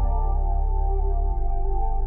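Background music: soft ambient music with sustained chords over a deep bass, the chord changing about a second and a half in.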